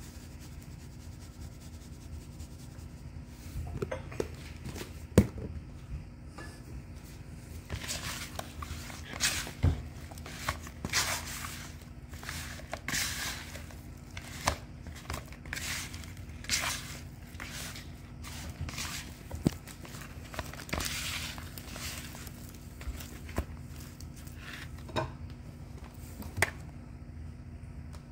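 Silicone spatula stirring seasoned raw chicken pieces in a bowl: irregular scraping strokes with a few sharp knocks against the bowl, busiest from about eight seconds in until shortly before the end, over a steady low hum.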